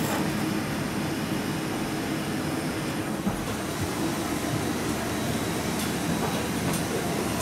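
Steady mechanical drone and airflow hiss of a parked airliner's air systems heard from the jet bridge and cabin door during boarding, with a few faint clicks near the end.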